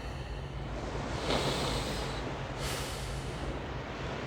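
A man breathing slowly and audibly through the nose close to the microphone, a deliberate breath of the kind taught as the 'so-hum' (hamsa) sound of breath. The breath swells about a second in and fades, over a steady low rumble.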